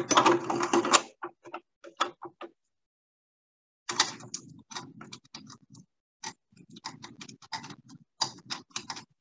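Irregular clicks and knocks of small hard objects being handled, with a louder clatter in the first second and a run of quick uneven clicks through the second half.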